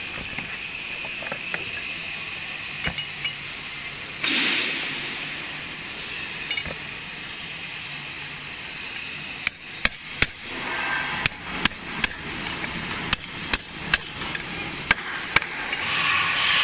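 Hammer blows on a steel drift bar driving the bearing out of a pellet mill roller shell: light metal clinks and a scrape first, then from about halfway a run of sharp metallic strikes, about two a second.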